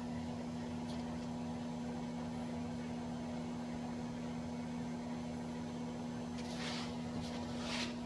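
Steady low electrical hum, with two brief rustling handling sounds near the end.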